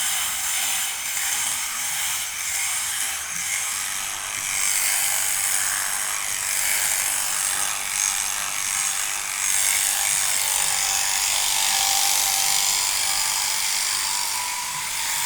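Takumi 900 sheep-shearing set running: a steady mechanical buzz and rasp that gets a little louder about five seconds in.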